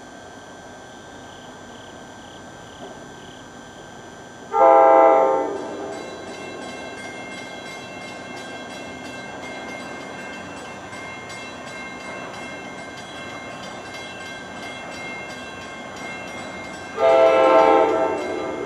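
Commuter train's air horn sounding a chord, two blasts of about a second each, roughly twelve seconds apart. Between them the train runs by with a steady rumble.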